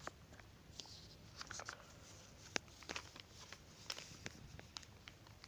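Faint, irregular clicks and light taps, a dozen or so scattered over a soft room hiss.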